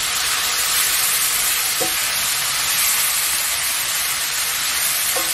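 Thin slices of beef brisket and green onion sizzling steadily in a hot nonstick frying pan with soy sauce and sugar, stirred and turned with a wooden spatula.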